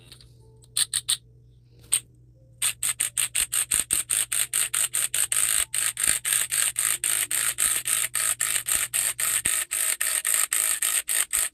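Cordless impact wrench turning the forcing screw of a ball joint press, hammering in rapid, even pulses as it presses a new bushing into a control arm. A few short bursts about a second in, then it runs without a break from about two and a half seconds in.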